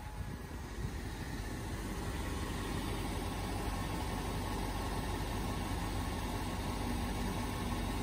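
2008 BMW X5 4.8i's V8 engine idling steadily with the air conditioning running.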